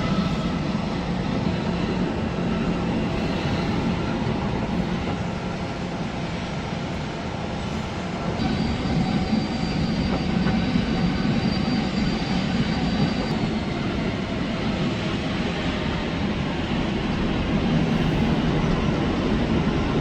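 Airliner engine noise, steady and dense with a low-pitched core. A thin high whine comes in about eight seconds in and stops about five seconds later.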